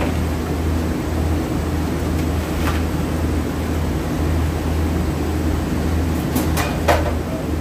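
Steady low mechanical hum of workshop machinery. A few light clicks of small parts being handled on the bench come through, mostly near the end.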